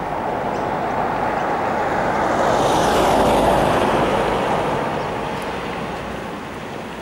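A vehicle driving past on the road: tyre and engine noise that swells to a peak about halfway through and then fades away.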